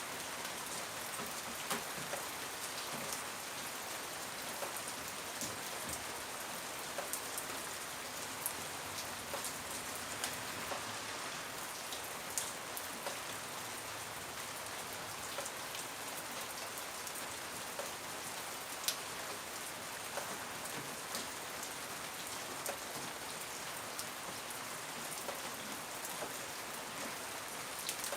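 Steady rain falling, with scattered sharper drops ticking through it.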